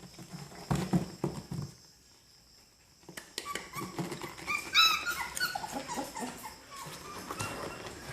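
Three-week-old puppies whimpering and yelping in a run of short high-pitched cries, loudest about five seconds in. A few soft thumps, like the pups moving about, come about a second in.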